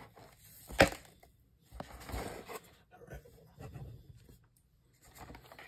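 A taped cardboard shipping box being handled and opened: a sharp knock about a second in, then several short scrapes and rustles of cardboard and packing tape.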